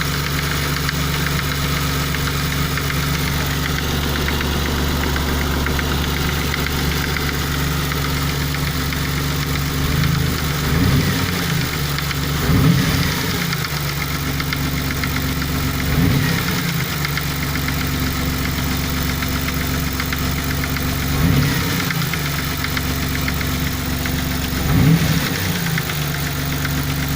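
Nissan VQ30DET turbocharged V6 idling with a clattering knock of unknown cause. From about ten seconds in the engine is briefly blipped several times, its pitch rising and falling each time before it settles back to idle.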